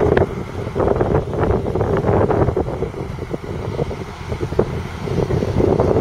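Deutz-Fahr 5660-HTS combine harvester running on its 6.1-litre six-cylinder diesel: a steady drone with irregular mechanical rattling and clatter.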